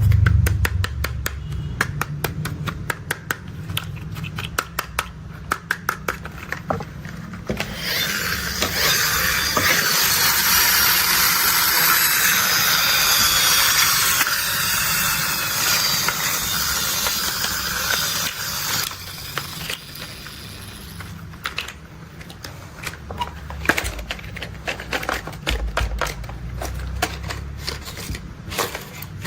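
Plastic toy construction vehicles being handled and played with: quick runs of sharp clicks and rattles from the plastic parts, broken by a louder stretch of about ten seconds of rushing, hissing noise with a faint wavering tone.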